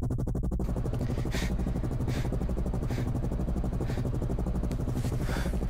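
A low, steady pulsing drone with short hissy sounds about once a second.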